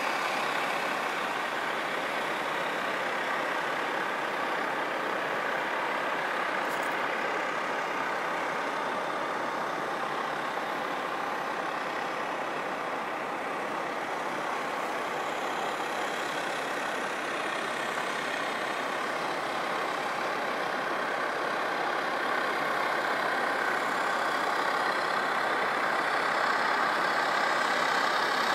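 Steady, unchanging machine noise, like a large engine running.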